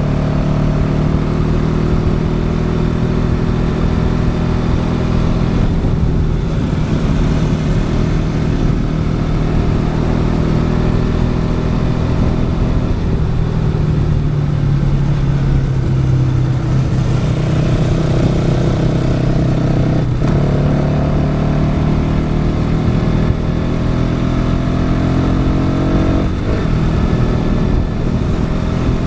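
Bajaj Pulsar NS200's single-cylinder engine pulling under load on a moving bike, its note climbing and falling with throttle. The note breaks and drops briefly a few times where gears are changed.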